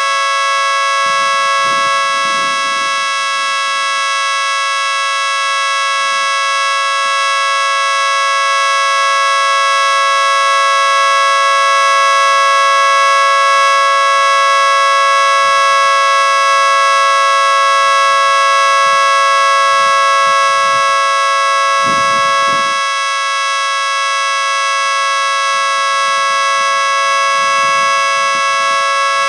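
Miniature 3T22B three-tone siren sounding a steady chord that holds its pitch without wavering: the Alert signal.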